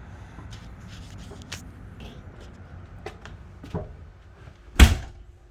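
Small clicks and handling noises, then a loud bang near the end as a travel trailer door is shut, after which the outdoor background noise drops away.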